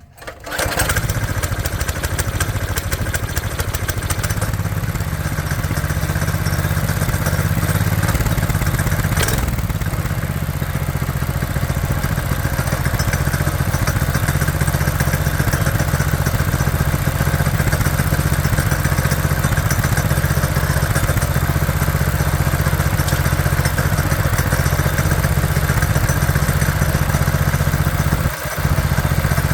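Go-kart's small gasoline engine starting with the choke on, fitted with a new replacement carburetor, then running steadily; its level dips briefly near the end.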